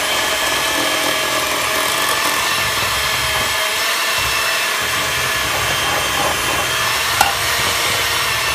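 Electric hand mixer running steadily, its beaters churning stiff, crumbly cookie dough in a glass bowl. A single sharp knock comes about seven seconds in.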